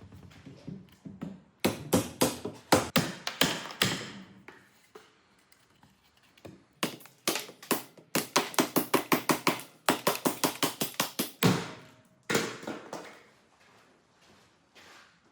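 Knife blade chopping in quick, sharp strokes. There is a run of cuts about two seconds in, a faster run of about four or five strokes a second from about seven to eleven seconds, and a short final burst.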